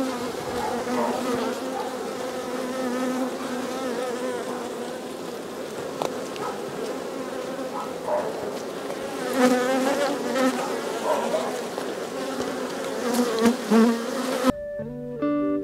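Buckfast honeybees buzzing around an open hive as its frames are lifted out, a steady hum that swells and dips. Near the end the buzzing cuts off and acoustic guitar music begins.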